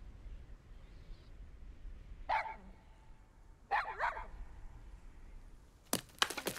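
A dog barking: one bark about two seconds in, then two or three quick barks a second and a half later. A few sharp clicks follow near the end.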